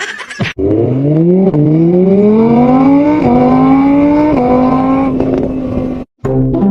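Car engine accelerating through the gears: its pitch climbs, dips at three upshifts and climbs again, then holds steady before cutting off suddenly near the end.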